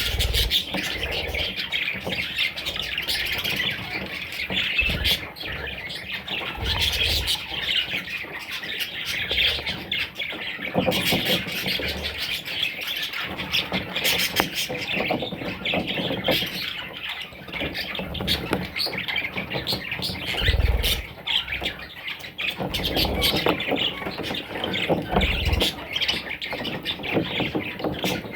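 A flock of budgerigars chattering and squawking without a break, many short calls overlapping, with a few low thumps scattered through.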